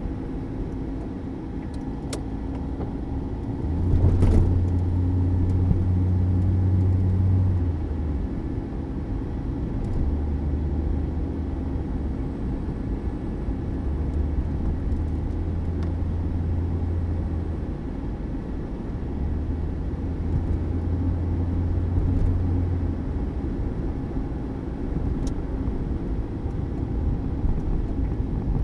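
A 1979 Mercury Zephyr sedan running with a steady low rumble. The rumble swells in several drawn-out surges, the loudest about four to eight seconds in, and a sharp knock comes just before it.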